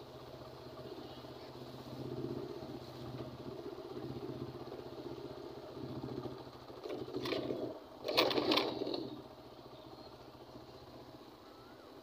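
A vehicle running with a steady low hum while travelling. About seven to nine seconds in there is a loud clatter of jolts as it bumps across railway tracks at a level crossing.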